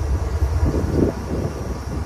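Diesel freight locomotive running with a steady low rumble, with a brief louder rush of noise about a second in.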